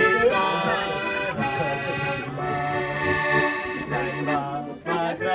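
Music with sustained, held chords and notes that change about every second.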